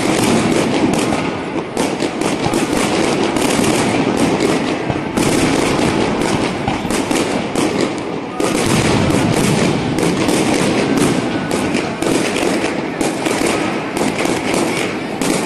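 Fireworks going off in rapid succession: a dense, unbroken stream of overlapping bangs and crackles from bursting aerial shells and firecrackers.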